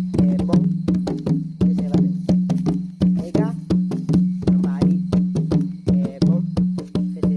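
Music with a steady low drone under a regular beat of sharp wooden knocks, about two to three a second, and a wavering melody over the top.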